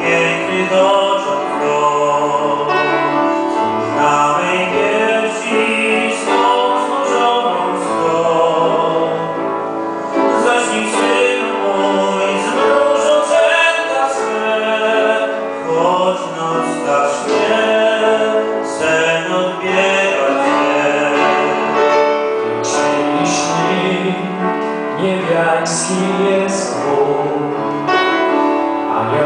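Male voice singing into a microphone over piano accompaniment.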